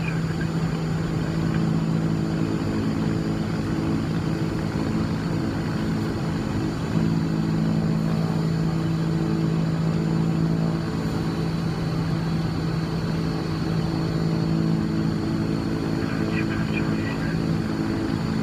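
Cessna 340's twin turbocharged six-cylinder Continental piston engines idling steadily, heard from inside the cockpit as an even drone.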